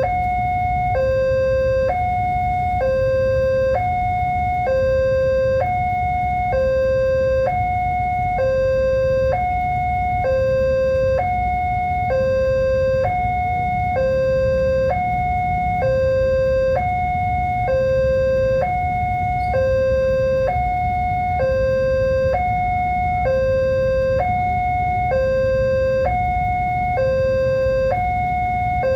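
Railway level-crossing warning alarm sounding a steady electronic two-tone signal, a high and a low tone alternating about once a second: the crossing is warning that a train is approaching. A constant low rumble runs underneath.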